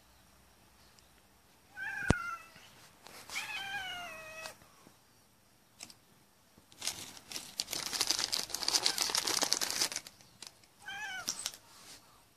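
A cat meowing three times: a falling meow about two seconds in, a longer falling one just after, and a shorter one near the end. A sharp click comes with the first meow, and a few seconds of crackling noise fill the middle.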